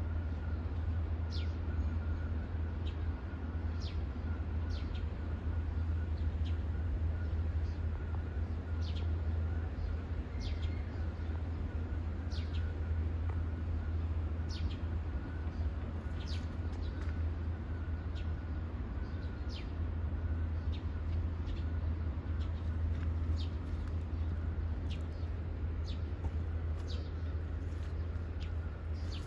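Birds chirping outdoors: short, high, falling calls repeated every second or two. Underneath is a steady low rumble.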